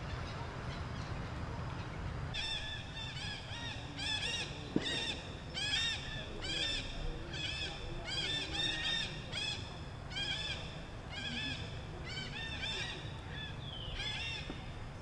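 A run of short, repeated animal calls, each an arched high cry, about two a second, starting about two seconds in and going on for some twelve seconds. A single sharp click comes near five seconds in.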